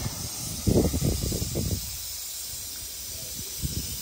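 Steady hiss of compressed nitrogen in the pneumatic air lines of a home-built pontoon rig, with low thumps about a second in and again near the end.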